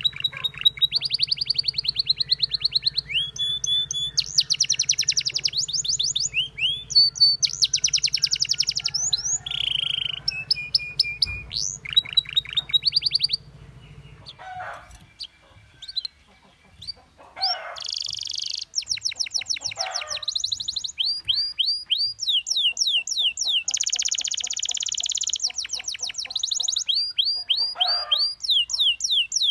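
Domestic canary singing: long runs of fast trills and rapidly repeated whistled notes, broken by a pause of a few seconds about halfway.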